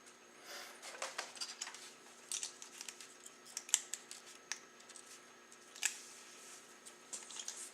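Small plastic model-kit parts being handled and tried together: scattered light clicks and rustles, irregular, with a few sharper clicks.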